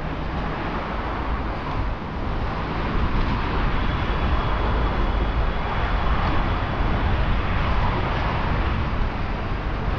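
Steady rolling rumble of inline skate wheels on pavement mixed with city traffic noise, a little louder from about three seconds in.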